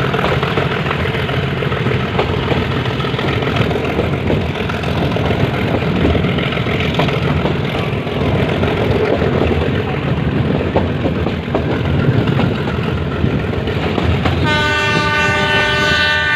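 Metre-gauge passenger train running, heard from on board: a steady rumble and rattle of the coaches on the track. About fourteen and a half seconds in, the locomotive's horn starts a long, steady blast.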